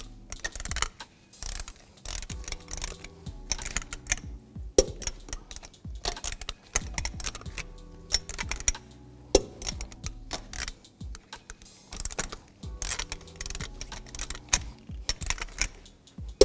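Torque wrench ratchet clicking in quick runs as the lug nuts are tightened to 100 foot-pounds, with three louder sharp clicks about four to five seconds apart.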